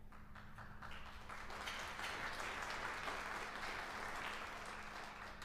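Audience applauding, building over the first couple of seconds and thinning out near the end.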